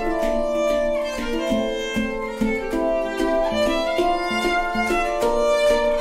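Handpan and violin duet: hands strike ringing metallic notes on two handpans in a steady rhythm while the violin bows a sustained melody over them.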